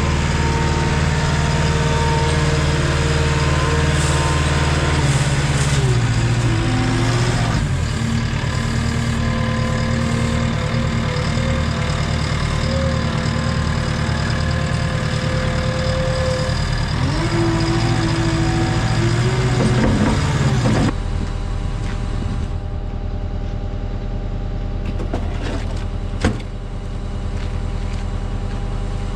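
An engine running steadily, its pitch shifting up and down a couple of times. About two-thirds of the way in it changes abruptly to quieter steady running, and a single sharp click comes near the end.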